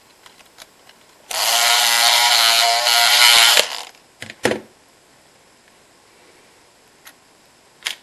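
Electric lock pick, a hacksaw-blade pick driven by an electric shaver's motor, buzzing in a padlock's keyway to vibrate the pins. The buzz starts about a second in, lasts a little over two seconds and stops suddenly. A few light metallic clicks follow.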